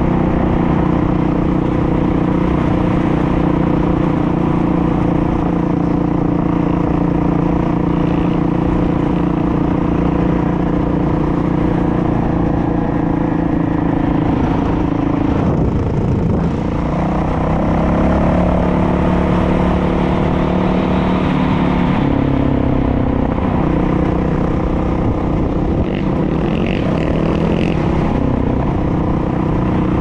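Dirt bike engine running steadily at cruising speed, heard from on the bike with wind rush on the microphone. About halfway through, the revs drop briefly, then climb again as the bike accelerates.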